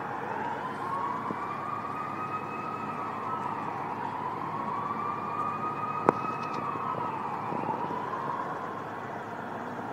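Emergency vehicle siren wailing, its pitch slowly rising and falling about every three to four seconds, with a single sharp click about six seconds in.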